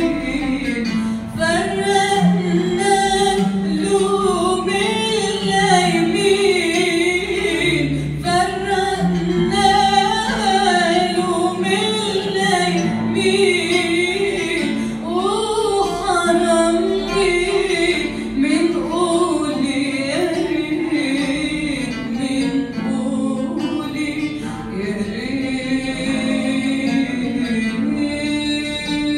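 A woman sings a classical Arabic song in a wavering, ornamented melody, accompanying herself on the oud.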